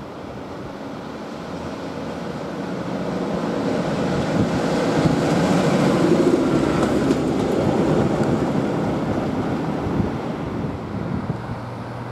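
Diesel locomotive running past at close range, its engine rumble growing louder to a peak about six seconds in, then fading as it moves away.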